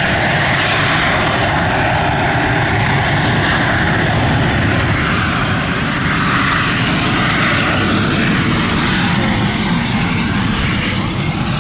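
Saab Gripen's Volvo RM12 jet engine running loud and steady, a dense roar whose pitch shifts slowly as the aircraft moves.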